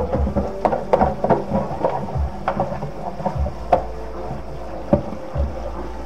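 Irregular knocks and clatter of hard objects being handled and set down while a kitchen is cleaned, about a dozen sharp hits with the strongest near the end, over a steady low rumble.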